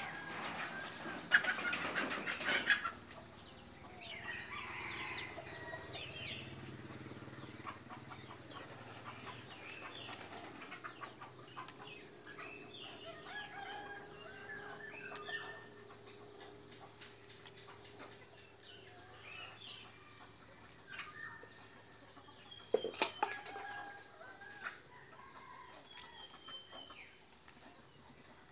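Chickens in a yard: a loud burst of wing flapping about a second in and another late on, with scattered clucks and short calls over a steady high-pitched buzz.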